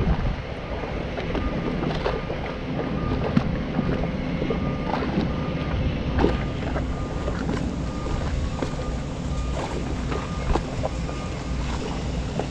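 Wind buffeting the microphone over a steady low engine rumble, with a faint beep repeating throughout and a few scattered clicks.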